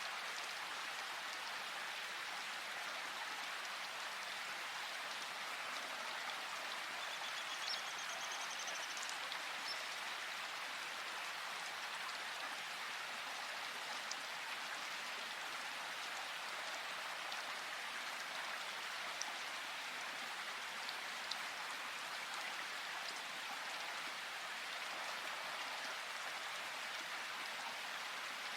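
Steady rain falling in a forest: an even hiss of rain with scattered individual drop ticks. A brief high, rapidly repeating trill sounds about seven seconds in.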